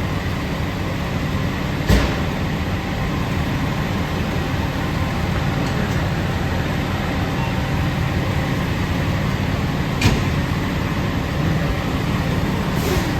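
A fire apparatus's diesel engine idling steadily with a low rumble. There are two sharp knocks, about two seconds in and again about ten seconds in.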